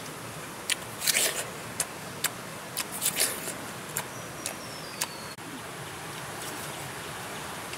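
A person eating close to the microphone: sharp crunching clicks and a couple of short puffs of breath through pursed lips, stopping about five seconds in. A steady hiss of forest background runs underneath.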